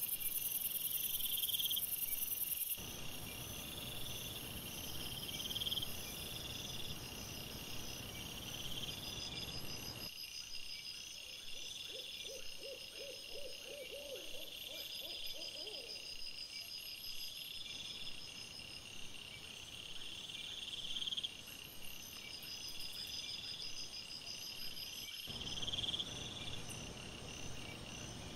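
Crickets chirping in repeated high bursts, with a steady background hiss that changes level abruptly a few times where the recording cuts. About halfway through there is a short run of rapid, lower-pitched pulsed calls.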